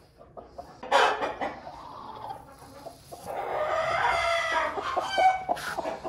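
Chickens calling: a sharp, loud squawk about a second in, then a long drawn-out call that rises and then falls in pitch through the second half.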